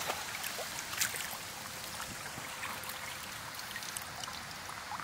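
Shallow river water flowing with a steady hiss, broken by a few small splashes as a brown trout and gloved hands move at the surface; the sharpest splash comes about a second in.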